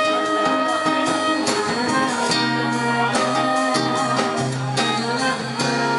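Small live band playing an instrumental passage between sung lines: a wind instrument, likely saxophone, holds melody notes over nylon-string guitar, keyboard and drums.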